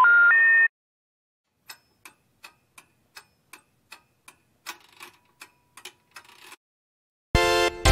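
A short three-note rising electronic chime, then a clock ticking about three times a second for some five seconds, then a loud buzzing electronic tone cutting in near the end.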